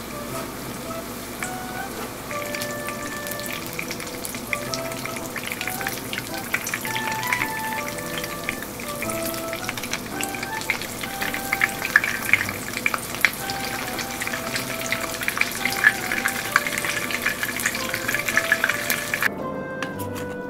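Breaded skewers deep-frying in a shallow pan of hot oil, a steady sizzle full of crackles and sharp pops, busiest in the second half. It cuts off suddenly near the end.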